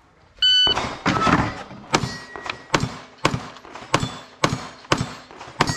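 An electronic shot timer beeps once, then a handgun fires a rapid string of about ten shots, roughly two a second. Struck steel targets ring briefly after some of the shots.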